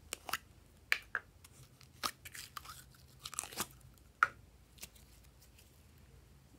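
Glossy glitter slime being pressed and pulled by hand, giving a scattered run of sharp, sticky pops and crackles; the loudest pop comes a little after four seconds in.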